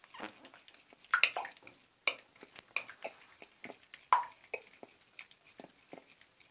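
A sticky mixture of clear water-based glue, water and shampoo being stirred into slime, giving irregular wet squelches and light clicks.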